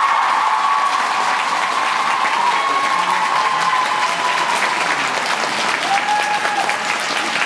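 Audience applauding as the program music's last note dies away over the first few seconds.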